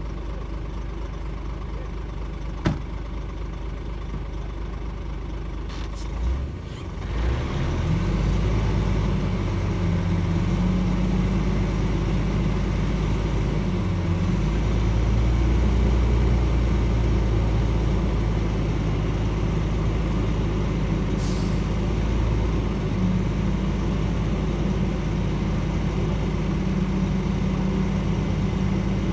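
Shantui DH17C2 bulldozer's diesel engine running. It dips briefly about six seconds in, then picks up and runs steadily heavier as the dozer works the soil. There is a sharp click about three seconds in and a short hiss about two-thirds of the way through.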